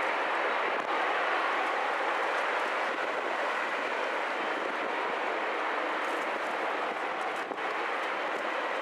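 Airbus A380's four jet engines running at takeoff thrust as the airliner begins its takeoff roll away from the listener: a steady rushing roar with no breaks.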